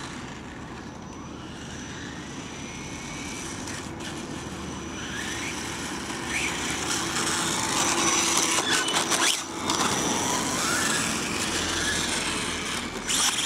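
SkyRC Super Rider SR4 electric RC motorcycle running on pavement. Its brushless motor whines up and down in pitch over a steady hiss of tyres and outdoor noise, growing louder about halfway through.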